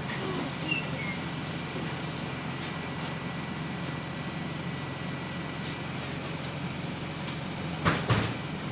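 Interior sound of a Wright StreetLite single-deck bus on the move: steady engine and road rumble. A faint high whine runs for a few seconds, and two sharp knocks come close together near the end.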